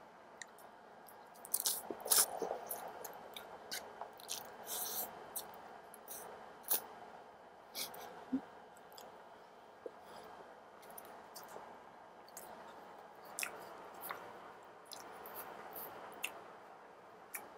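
Close-miked eating sounds: black bean sauce noodles (jjapagetti) slurped and chewed, with wet lip smacks and many short, sharp clicks, busiest about two and five seconds in.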